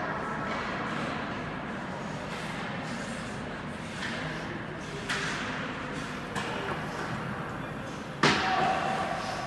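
A sharp thud about eight seconds in, ringing briefly after it, over steady background noise, with two lighter knocks a few seconds before it.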